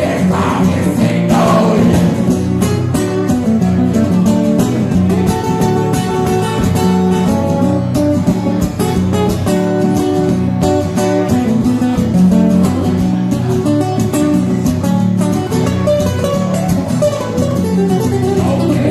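Music with guitar, plucked strings and some singing.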